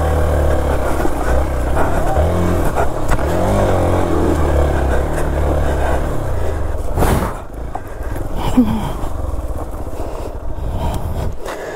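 Motorcycle engine running at low revs, its pitch wavering up and down as the throttle is worked. About seven seconds in a short burst of noise cuts across it, and the engine sound then drops away and is much quieter.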